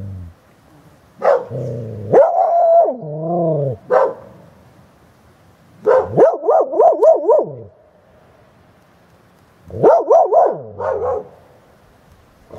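Carolina Dogs growling and barking in three short, wavering bouts: about a second in, around six seconds, and around ten seconds.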